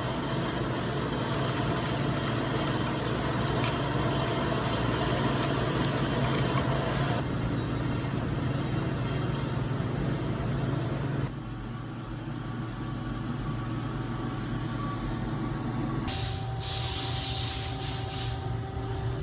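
Machine-shop noise: a machine running steadily with a low hum, changing abruptly twice, then several short bursts of loud hissing in the last few seconds.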